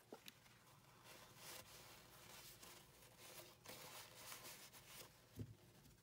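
Faint rustling and rubbing of a paper towel wiping small wooden padlock parts, with a soft low thump about five and a half seconds in.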